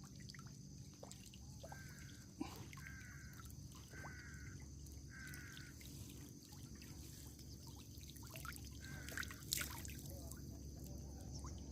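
Water trickling and dripping over a steady high insect drone at night. A series of short chirping calls comes about a second apart from about two seconds in, with one more near the end, and there are sharp knocks about two and a half and nine and a half seconds in.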